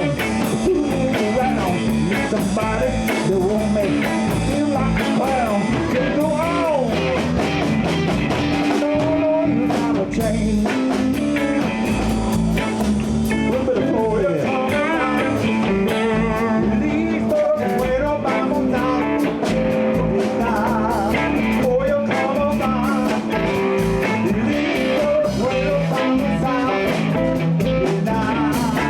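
Live blues band playing a song: a lead line bending and wavering in pitch over electric guitar, bass and drums.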